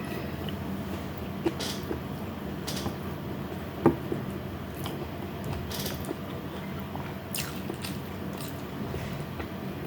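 Close-miked eating sounds: chewing with small wet, squishy mouth noises and scattered light clicks, and one sharper click about four seconds in.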